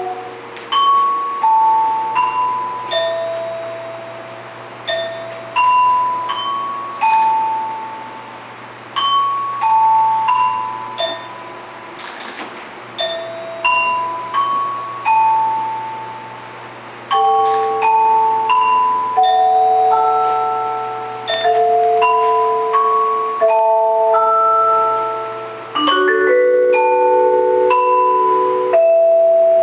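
A slow bell-like melody played on tuned mallet percussion: single struck notes, each ringing and fading, over held lower tones. Near the end several notes sound together as a held chord.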